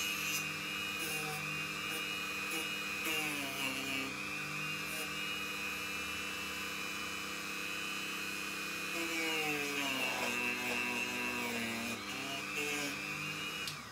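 Dremel rotary tool running at high speed, a steady whine whose pitch sags twice as the bit bears on the work. It is switched off near the end and stops suddenly.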